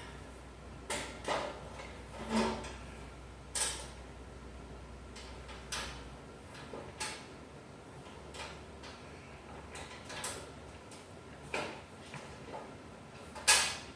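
Separate knocks and clanks of metal bandsaw parts and hand tools being handled during assembly, about one every second or so, the loudest near the end.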